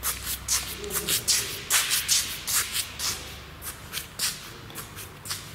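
Shoe footsteps scuffing on a gritty concrete floor at a walking pace, about two to three steps a second.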